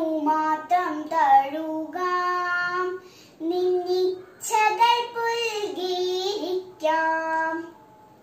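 A young girl singing solo and unaccompanied, held notes in short phrases with brief breaks between them; she stops shortly before the end.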